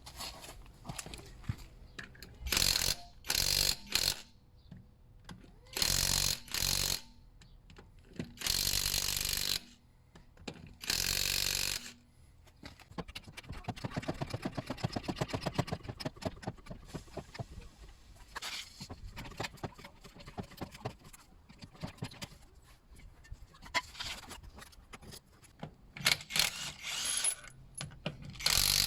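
Power tool running in short bursts of about half a second to a second, repeated several times, with a stretch of rapid, even ticking in the middle and more bursts near the end.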